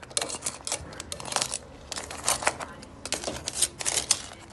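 Metal tongs clacking and scraping against hard crab shells and the pot as the crabs are shifted around: irregular sharp clicks and knocks, several a second.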